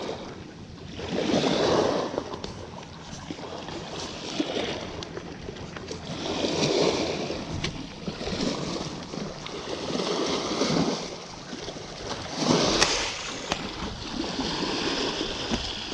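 Sea water lapping and sloshing, swelling and fading every few seconds, with a couple of sharp knocks.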